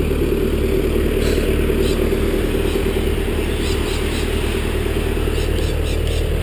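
Vermeer SC60TX stump grinder's engine running steadily.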